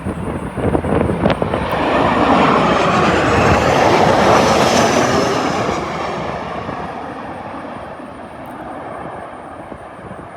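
Southwest Airlines Boeing 737 jet flying low overhead, its engine noise swelling to a peak about four seconds in and then fading away. Wind buffets the microphone in the first two seconds.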